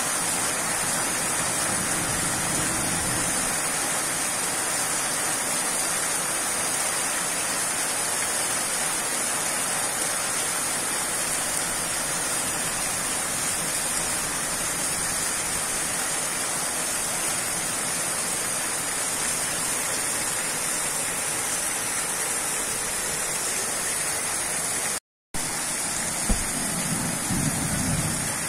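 Heavy rain falling steadily in a thunderstorm downpour, an even hiss with no let-up. A low rumble swells briefly near the end.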